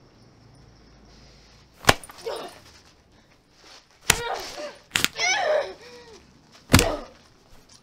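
Four hard punches landing in a fist fight, one to two seconds apart, each followed by a woman's short grunts and pained cries. The first and last hits are the loudest.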